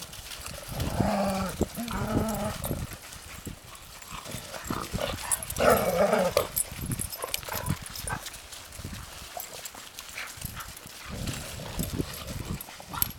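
Several dogs playing together and vocalising in short calls, with the loudest outburst about six seconds in, over scattered scuffs and patters of paws on frozen snow.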